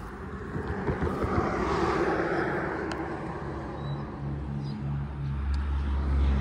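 A road vehicle passes, its tyre and engine noise swelling to a peak and fading, then a low, steady engine hum comes in and grows louder near the end as another vehicle approaches.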